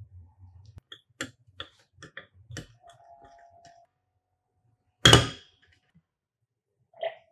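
Tools and parts being handled: a run of light clicks and knocks, a short squeak about three seconds in, then one loud knock about five seconds in.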